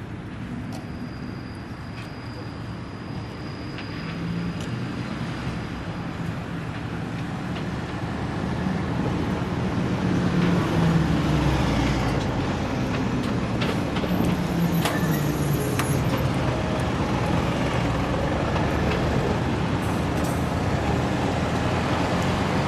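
Kanto Railway Joso Line diesel railcar approaching, its diesel engine running and growing louder over the first ten seconds or so, then holding steady. A few sharp clicks, typical of wheels over rail joints, come about halfway through.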